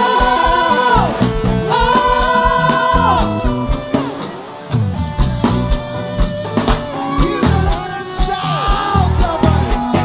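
A band playing a worship song with drums and guitar while voices sing long held notes. The music drops back briefly about four seconds in, then comes back in.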